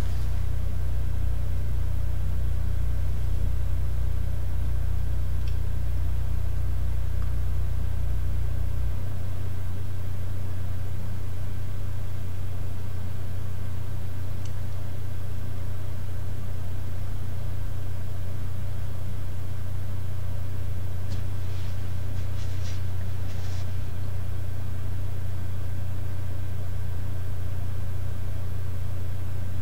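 Steady low hum of a desktop computer and a Toshiba 60 GB, 5400 rpm hard drive spinning under a benchmark read test. The deepest part of the hum drops away about nine seconds in, and a few faint clicks come a little past the two-thirds mark.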